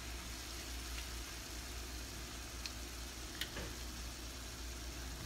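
Tomato sauce sizzling faintly in a frying pan over a steady low hum, with a couple of faint clicks.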